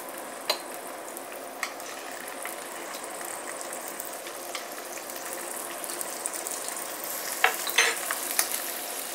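Chunks of pressed tofu sizzling in shallow hot oil in a non-stick pan, a steady hiss that slowly grows louder. Sharp pops and crackles come as pieces are laid in, twice early and loudest about three-quarters of the way through: water from the tofu spitting in the oil.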